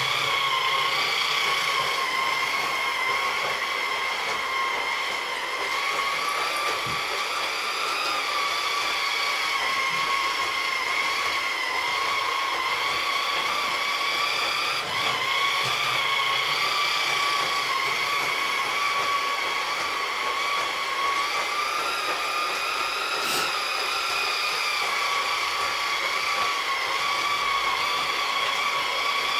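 LGB G-scale model locomotive running around its track, the motor and gearing giving a steady whine that wavers slightly in pitch as it goes.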